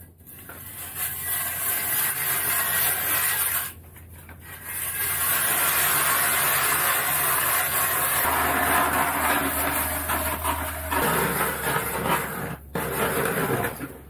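Hand-cranked ice auger boring through lake ice: a steady grinding scrape of the blades cutting, broken by two short pauses in the cranking, about four seconds in and near the end.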